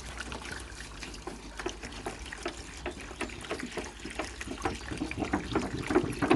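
Water pouring from a bottle into a plastic tub, a dense irregular splashing that grows louder near the end.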